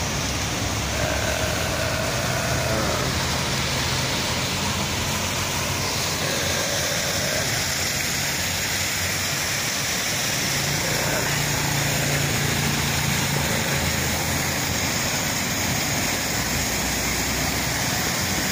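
Road traffic: a steady wash of cars and trucks passing on the street, with engine hum that swells now and then.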